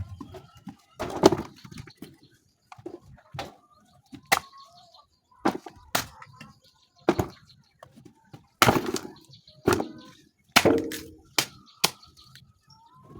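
Irregular sharp knocks and cracks, a dozen or so spread unevenly, from ingredients being handled and worked by hand, with chickens clucking faintly in the background.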